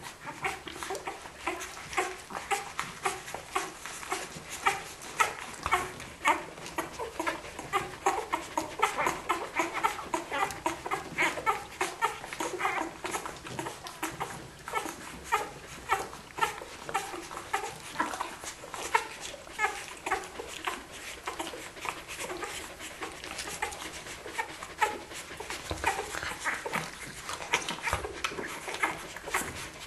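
A litter of week-old Australian Kelpie puppies nursing, making a steady stream of short squeaks and whimpers several times a second.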